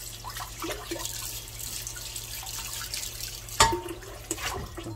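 Tap water running onto a cast iron skillet in a stainless steel sink while it is rubbed with a scrubber to lift burnt-on meat residue. About three and a half seconds in there is a sharp metal clank as the heavy pan is shifted, then a few lighter knocks.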